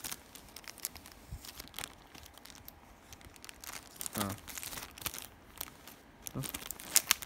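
Clear plastic packaging crinkling and tearing as hands pull it open: a run of irregular crackles, loudest near the end.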